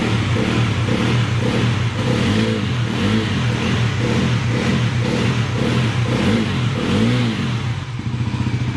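Bajaj Pulsar NS400Z's single-cylinder engine idling and revved in a string of quick throttle blips, the pitch rising and falling with each one. It settles back to a steady idle near the end.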